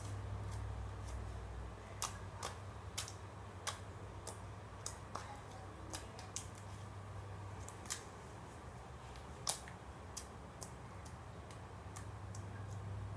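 Clear water slime squeezed, folded and poked by hand, giving irregular sharp wet clicks and pops about once or twice a second.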